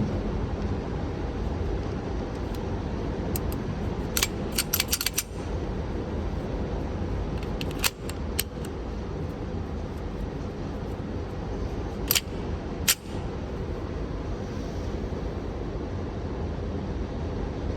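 Airsoft gun firing sharp pops in short strings: a quick run of about six, a couple of single shots soon after, then two more a little under a second apart, over a steady low background rumble.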